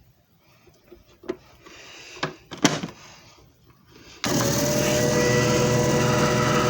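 A few light clicks and knocks of handling, then about four seconds in a JFJ Easy Pro disc repair machine's motor switches on abruptly and runs steadily with a hum.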